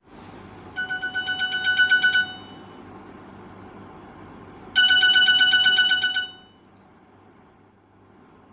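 Electronic wake-up alarm beeping in two runs of rapid high beeps, each about a second and a half long; the first run grows louder. A faint steady low hum lies underneath.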